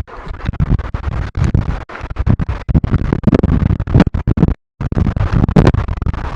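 Loud, irregular scratching and crackling close to the microphone, with heavy rumbling bumps, cutting out completely for a moment a little past halfway.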